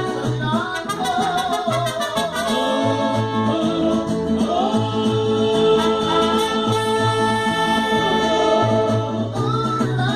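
Mariachi band playing with singing: trumpets and violins carry the melody over a bass line that alternates between two low notes.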